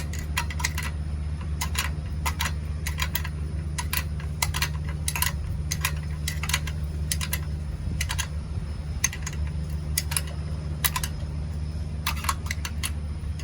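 Ratchet wrench clicking in quick runs while bolts on the generator's engine mounting are tightened, over a steady low hum.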